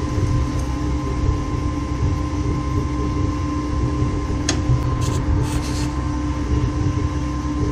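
Gas-fired melting furnace burner running steadily, a low rumble with a faint even hum. About four and a half seconds in, one sharp metallic clink as the aluminium die is worked open to free the casting.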